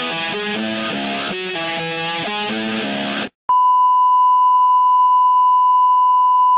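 Rock music with electric guitar that cuts off about three seconds in; after a brief gap, a steady, louder single-pitch tone sounds: the reference tone that goes with television colour bars.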